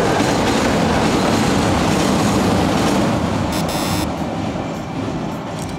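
Kintetsu express train crossing a railway bridge with a steady rumble and clatter of wheels, fading over the last couple of seconds as it moves away.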